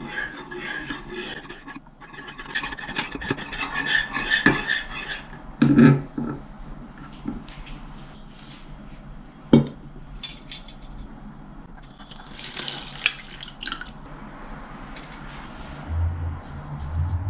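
Wire whisk stirring a liquid mixture in a non-stick saucepan, a fast, scratchy beating for about five seconds. It is followed by a few sharp knocks of pan and utensils being handled, and a second, shorter stretch of scraping.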